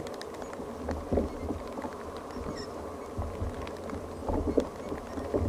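Water lapping against a fishing kayak's hull, with wind rumbling on the microphone and a few faint clicks of gear being handled.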